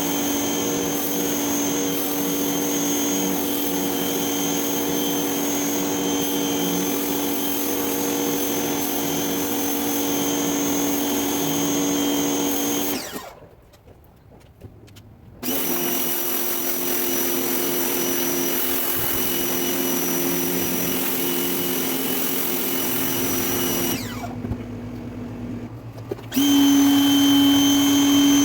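Greenworks 2000 psi electric pressure washer running with a steady motor hum under the hiss of the water jet on concrete. It stops for about two seconds a little before halfway, when the trigger is released, then starts again; near the end it drops quieter for about two seconds before coming back louder.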